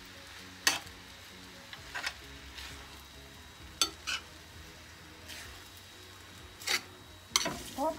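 Rice noodles and vegetables sizzling in a stainless steel frying pan as they are stirred and tossed. A utensil knocks sharply against the pan about six times.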